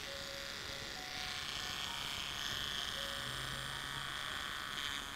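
Small electric rotary grinding tool whining steadily as its abrasive bit grinds the plastic edge of a SIM card, growing louder about a second in.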